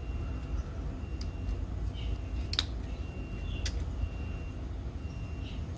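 Plastic parts of a building-block dinosaur figure clicking as they are pressed and snapped together by hand: a few sharp clicks, the loudest about halfway through, over a steady low rumble.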